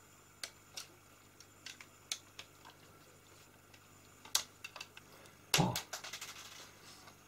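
Sparse small clicks and taps of a screwdriver, screws and plastic parts as the drive mechanism of a Unitra M8047 cassette deck is unscrewed and taken apart by hand, with a sharper tick about four seconds in and a louder clatter about five and a half seconds in.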